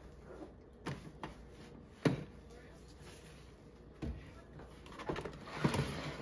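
Household items being handled and put away in a kitchen: several separate sharp knocks, the loudest about two seconds in, then a busier clatter and rustle near the end.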